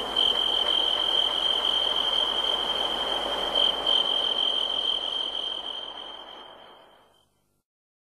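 Crickets chirring in one steady high tone over a soft nature-ambience haze, with no music, fading out to silence near the end.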